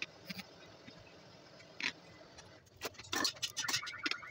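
Small clicks, taps and rattles of wires and metal parts being handled on an alternator's rear housing, a few at first, then a quick run of them over the last second and a half, with a short high chirp near the end.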